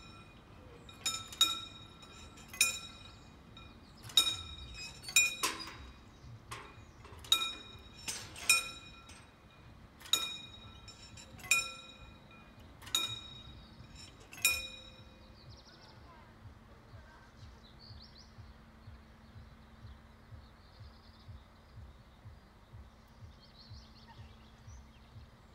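Level-crossing warning bells ringing in sharp, ringing strikes about once a second, slightly out of step, while the half barriers lower. They stop about 14 seconds in once the barriers are down, leaving faint regular ticking and a low steady hum.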